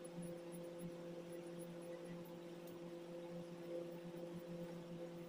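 A steady, faint hum with a low hiss underneath, unchanging throughout; no distinct scissor snips stand out above it.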